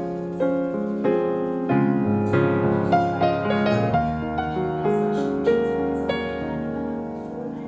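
Background music led by piano: a slow melody of sustained notes over low chords.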